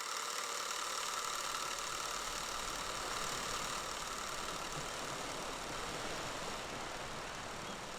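Steady mechanical whir with a hissy top, unbroken and even throughout, easing off very slightly near the end.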